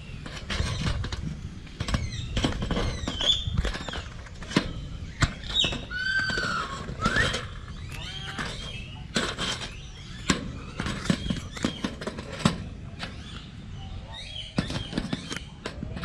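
Rapid, irregular sharp clicks and knocks of a hornbill's bill tapping against the camera at close range, mixed with short chirping bird calls that slide up and down in pitch.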